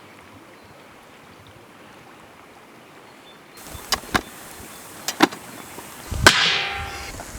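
Wood being chopped or split: four sharp knocks in two quick pairs, then a louder crack about six seconds in with a short ringing tail.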